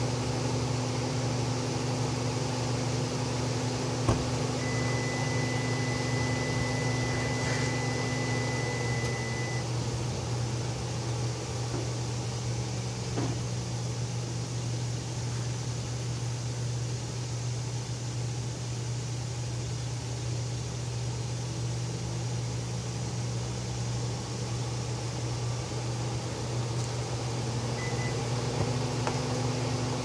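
Hyundai Kona engine idling steadily with its climate-control fan running, kept going by a remote starter's Stop&Go function. There is a single sharp knock about four seconds in, then a thin high steady tone for about five seconds. A part of the running hum drops away about nine seconds in and returns near the end.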